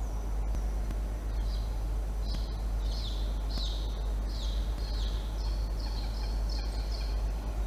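Peregrine falcon calling: a run of short, high, downward-slurred notes, about two a second, starting about a second in. A steady low hum runs underneath.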